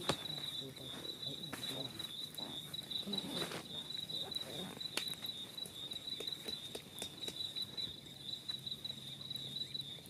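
Crickets trilling in one unbroken high-pitched note. Faint voices murmur in the first few seconds, and a few light clicks sound through it.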